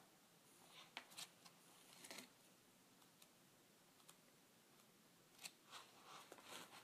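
Near silence with a few faint, short rustles and clicks about a second in, around two seconds in and again near the end: the pages of a book being leafed through.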